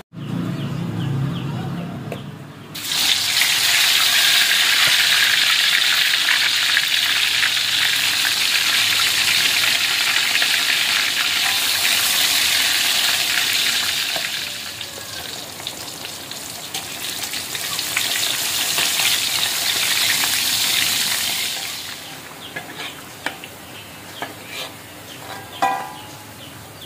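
Hot oil in a steel wok sizzling hard around battered food frying. The sizzle starts suddenly about three seconds in and dies down to a lighter crackle near the end. A metal spatula then ticks and clinks against the wok as the pieces are lifted out.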